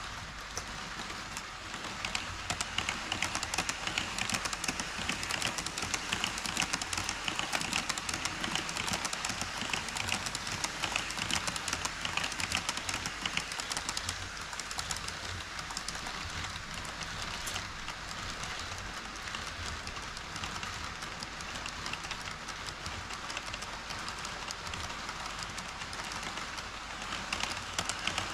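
HO-scale model train running on KATO Unitrack: a steady rattling roll of wheels on rails with rapid fine clicks, growing louder about two seconds in and again near the end.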